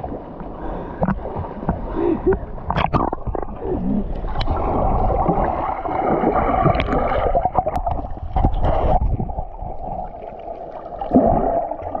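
Waterfall water rushing and splashing into a pool, heaviest in the middle, with a few short knocks.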